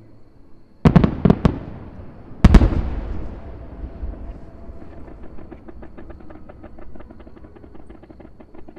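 Fireworks shells bursting: four sharp bangs in quick succession about a second in, then one heavy boom a second later that rumbles and dies away slowly, followed by a fast run of small crackling pops.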